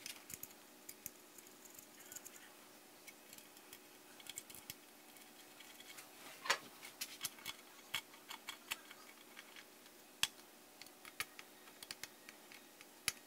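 Faint, scattered metallic clicks and ticks of hand tools on steel bolts as radiator mounting bolts are threaded in by hand and tightened with an 8mm T-handle wrench. The clicks come thickest in a cluster just past the middle.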